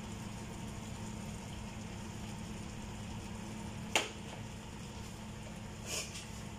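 Chicken pieces and chicken livers cooking in a frying pan: a steady, soft simmer with a low hum underneath, a sharp click about four seconds in and a brief tick near the end.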